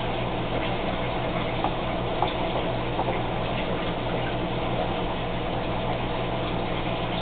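Air bubbling in a small aquarium tank, a steady fizzing with scattered small pops, over the steady low hum of an aquarium air pump.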